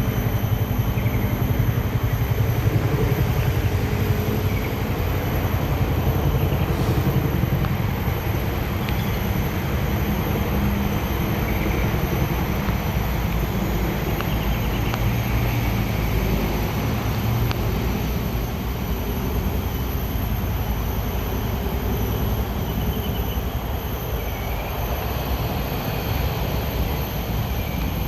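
Steady low rumbling noise with a hiss over it, easing off slightly in the second half.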